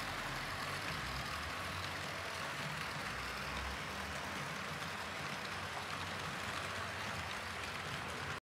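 Model train running on the layout track: a steady rolling and motor noise from the locomotive and coaches on the rails, cutting off abruptly just before the end.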